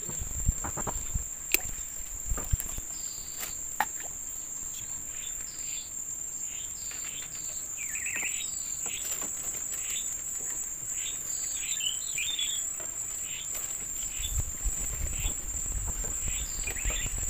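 Steady high-pitched drone of insects, with a string of short high calls repeating about once or twice a second. A few sharp clicks come in the first few seconds.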